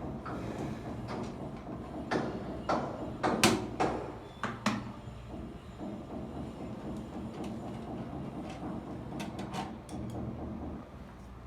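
Scattered clicks and knocks of concealed-cistern fittings being handled, with a cluster of sharper knocks a few seconds in, over a steady low hum.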